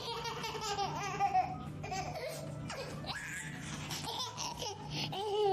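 A baby laughing, a run of high-pitched laughs.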